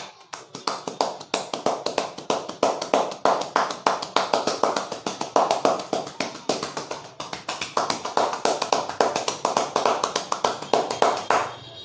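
Rapid, rhythmic slapping and tapping of a barber's hands on a person's head in a traditional Indian head massage (champi), several hits a second. It starts abruptly and stops just before the end.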